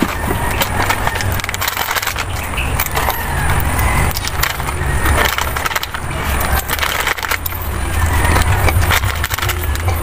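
Close-miked crunching of a crunchy packaged snack being chewed, mixed with crinkling of the plastic snack packet, over a steady low rumble.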